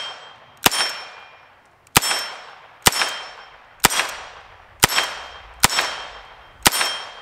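Diamondback Sidekick nine-shot .22 revolver fired seven times at about a shot a second. Each sharp shot is followed by a ringing tail that dies away over roughly a second.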